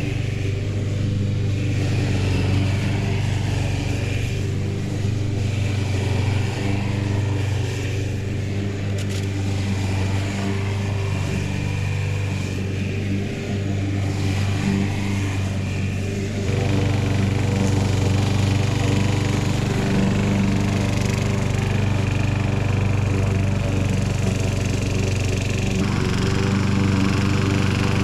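Walk-behind rotary lawn mower's small petrol engine running steadily while mowing. It gets louder at about sixteen seconds in as the mower comes closer.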